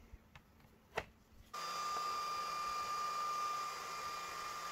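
A sharp knock about a second in as the MDF board is set onto the metal honeycomb bed. From about a second and a half on, a small motor or fan runs steadily with a high, even whine over a hiss.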